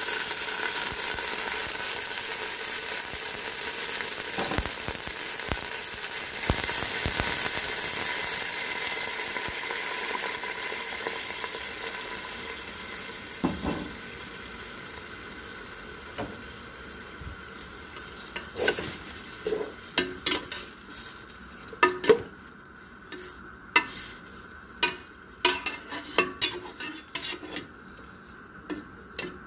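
A meat and tomato stew sizzling in a hot pot, the hiss slowly dying down as the liquid settles. From about two-thirds of the way through, a metal spoon knocks and scrapes against the pot as the stew is stirred.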